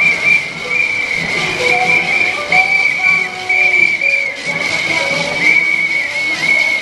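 Shrill whistles blown by marching protesters, held in long, near-continuous blasts with brief breaks, over the hubbub of the crowd.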